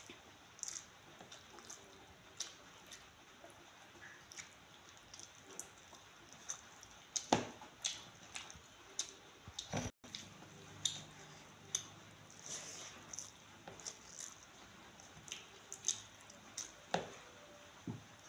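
A person eating rice and curry with her fingers from a steel plate: scattered soft wet squishing and chewing sounds with short clicks, the sharpest at about seven and seventeen seconds in.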